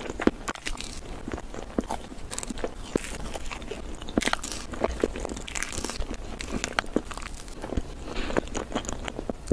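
Close-miked chewing and mouth sounds of a person eating soft layered sponge cake with cream frosting: a steady run of small wet clicks and smacks. A fork scoops up a bite about four seconds in.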